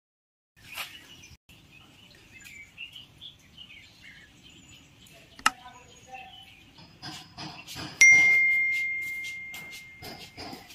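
A sharp click, then a bright bell ding about eight seconds in that rings on one steady tone and fades out over about three seconds: a subscribe-button click-and-bell sound effect. Birds chirp faintly underneath.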